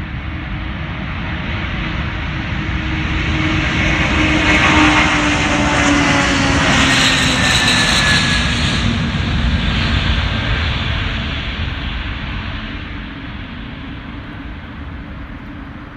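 Antonov An-124's four D-18T turbofan engines at takeoff thrust during the takeoff roll. A loud rumble swells to a peak as the aircraft passes, then fades, with whining tones that drop in pitch as it goes by.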